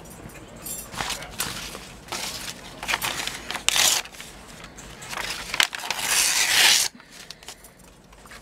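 Sheets of paint-covered paper (gelli prints) rustling and crackling as they are handled and spread out, in a string of bursts. The loudest and longest comes about five to seven seconds in and stops abruptly.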